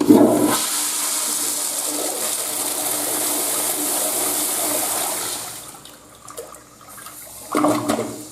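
Crane plumbing fixture flushing: a sudden rush of water that runs steadily for about five seconds, then dies away. A shorter burst of noise follows near the end.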